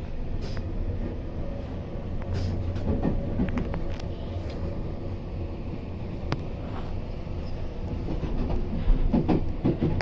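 Train running on the rails: a steady low rumble with scattered clicks and knocks from the wheels and track.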